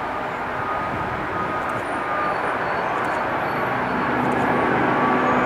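Airbus A380 with four Rolls-Royce Trent 900 turbofans flying low on landing approach: a steady jet rumble with a faint high whine, growing louder as it comes closer.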